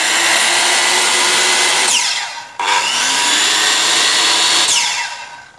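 Hitachi electric circular saw with a 185 mm blade running free, not cutting. It runs at a steady high whine, winds down with a falling whine about two seconds in, starts again and spins back up, then winds down once more near the end.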